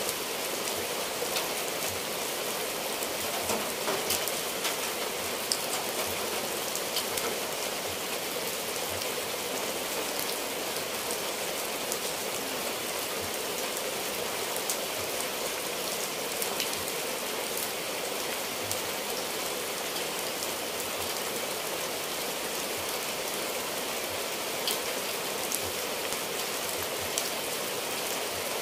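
Steady rain falling on clay-tile roofs and trees, with close raindrops ticking now and then.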